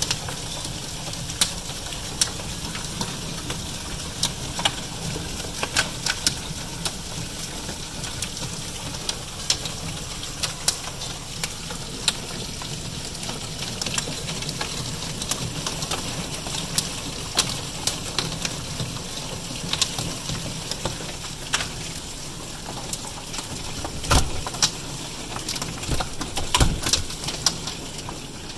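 Hail storm: a steady hiss of falling hail and rain, with frequent sharp, irregular clicks of hailstones striking. A few low thumps come near the end.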